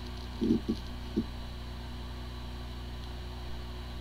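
Hard disk drive powered up and spinning with a steady hum, with a few brief low knocks in the first second and a bit. It sounds like a healthy drive, yet its firmware is corrupted and a computer cannot detect it.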